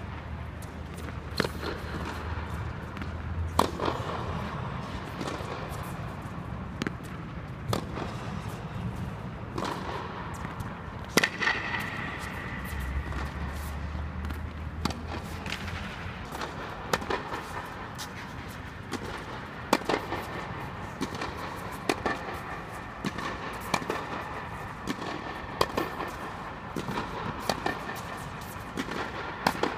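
Tennis balls struck by rackets during a rally or hitting drill: sharp pops at irregular intervals, about one every one to two seconds.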